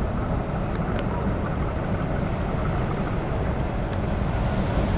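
Steady low rumble of a river cruise ship under way, with wind on the microphone.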